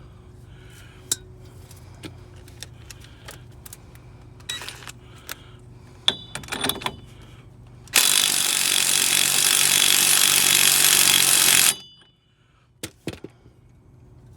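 Scattered clicks and knocks, then about eight seconds in a Ryobi impact wrench hammers loudly and steadily on a stuck bolt for about four seconds and cuts off suddenly, followed by a few more knocks.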